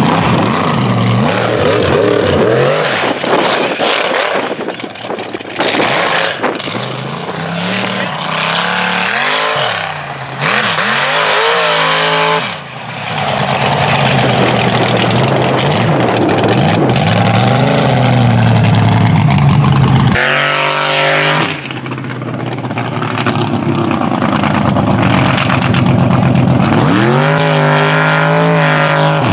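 Mega truck engines revving hard again and again, the pitch climbing and falling with each blip of the throttle, with an abrupt change about two-thirds of the way in.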